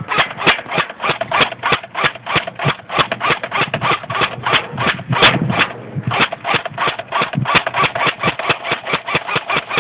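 Electric airsoft rifle, a G608 G36-style replica, firing BBs at close range in a rapid, steady string of sharp clicks, about four shots a second, with the pellets hitting an aluminium can set against a steel wall.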